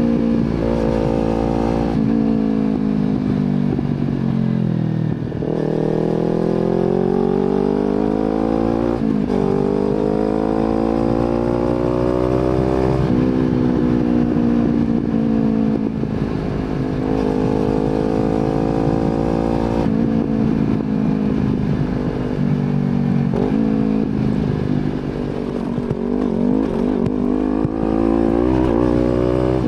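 Kawasaki Z250 motorcycle engine through an aftermarket slip-on exhaust, under way. The engine note climbs in pitch and drops back several times as it accelerates through the gears and shifts, with a slower fall and dip about five seconds in.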